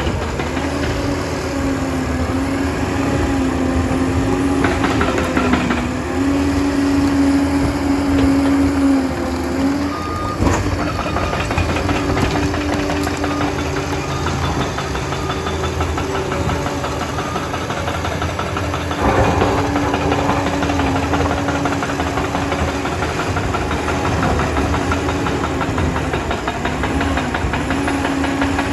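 Liebherr 746 crawler dozer's diesel engine running under working load, its note shifting up and down as it pushes. A sharp knock comes about ten seconds in.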